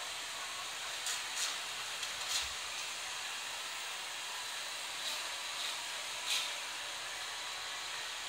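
Steady hiss of pet blow dryers running in a grooming room, with a few brief louder swishes over it.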